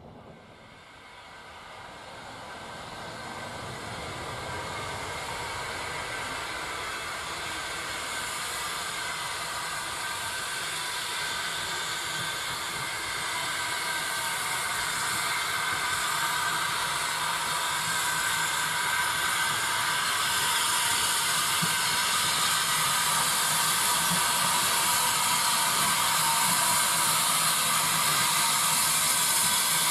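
Steam tank locomotive approaching with its passenger coaches, a steady hiss of steam that grows steadily louder as it draws near.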